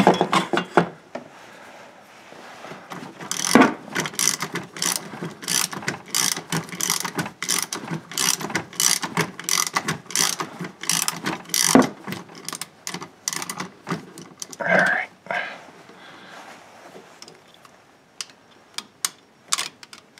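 Socket ratchet clicking in rapid runs of strokes as it backs out the transmission fill bolt on a Chevy Volt. The clicks thin out to a few scattered ones near the end.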